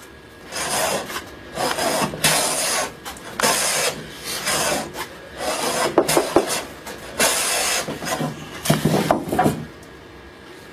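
Hand plane being pushed along a wooden board in repeated rasping strokes, about one a second, nine or so in all, stopping near the end. The surface is now flat enough that each stroke lifts a full shaving.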